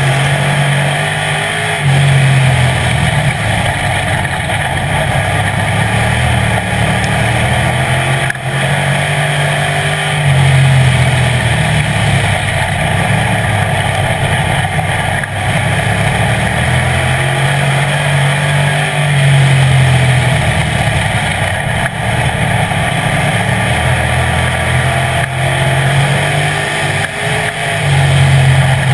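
Street stock race car's engine heard from inside the car at racing speed, climbing in pitch on each straight and falling off into each turn, a cycle that repeats about every eight seconds, lap after lap.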